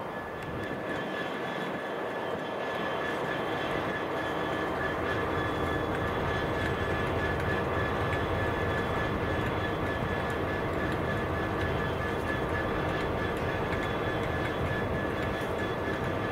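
Freight locomotives running in the yard: a steady low engine drone with a steady high whine over it, growing louder over the first few seconds and then holding.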